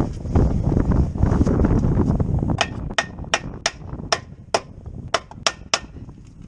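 Hammer striking metal, about nine sharp blows in quick succession starting about two and a half seconds in.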